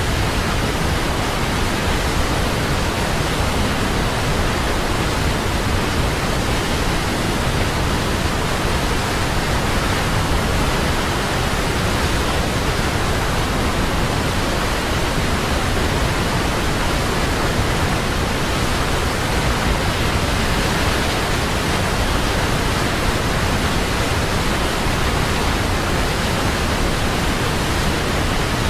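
Large waterfall crashing, a steady unbroken roar of falling water with no breaks or changes.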